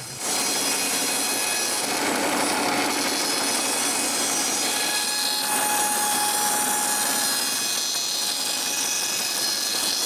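Large bandsaw with a wide blade ripping a birch log lengthwise into boards, a steady cutting sound that starts just after the beginning. The saw holds its speed through the cut with power to spare.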